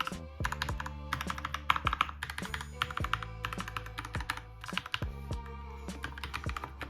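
Typing on a Keychron K2 mechanical keyboard: quick, irregular key clicks, over background music.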